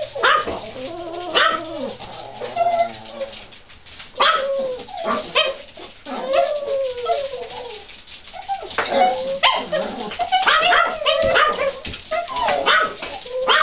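Small dogs whining and yipping excitedly, with short barks, while waiting to be fed. The whines rise and fall in pitch and overlap with sharp yips.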